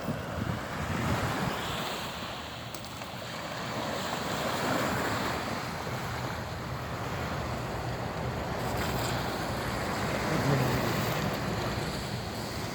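Sea waves washing on the shore, swelling and easing slowly, with wind buffeting the microphone.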